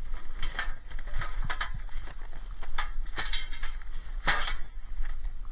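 Scrap being handled and rummaged through in a skip: a string of irregular knocks and clatters over a steady low rumble.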